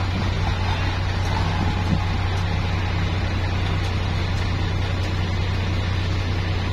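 Kubota M8540 tractor's diesel engine running at a steady pitch, a constant low drone, as the tractor drives along pushing soil with its front blade.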